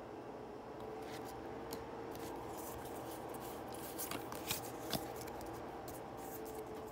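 Pokémon trading cards being handled and slid over one another in the hands, with scattered light flicks and ticks as the cards move, a few sharper ones about four to five seconds in.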